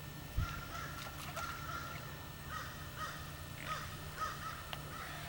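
Birds calling several times over a steady low hum, with a brief thump about half a second in.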